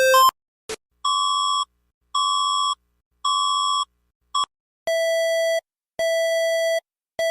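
An alternating two-pitch alarm cuts off just after the start, followed by a click. Then an electronic emergency alert tone plays three beeps at one pitch about a second apart, a short blip, and three longer beeps at a lower pitch.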